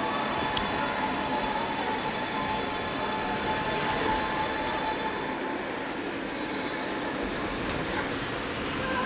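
Electric air blower running steadily, a constant rushing hum with a faint steady whine, as used to inflate water-walking balls.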